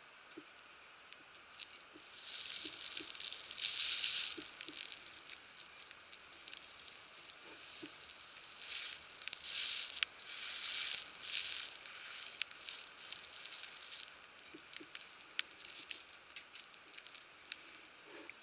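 Food sizzling on a hot iron griddle over a wood fire: the hiss swells loudly twice, about two seconds in and again near the middle, over scattered crackling pops from the fire.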